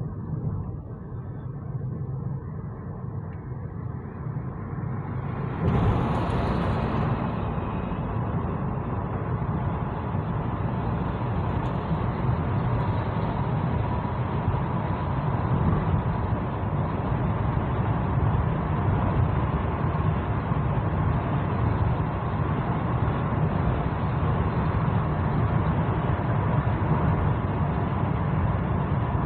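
Road noise inside a moving car: a steady low rumble of tyres and engine. About six seconds in there is a brief rush and the noise becomes louder and fuller as the car enters a road tunnel, staying steady from then on.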